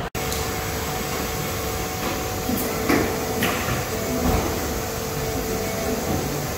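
Salvagnini P4 CNC panel bender running on a test cycle: a steady mechanical hum with a held tone, and a few short clanks of the bending tooling near the middle.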